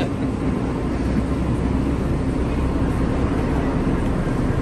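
Steady low rumble of a passenger ferry's engines, with a faint constant hum.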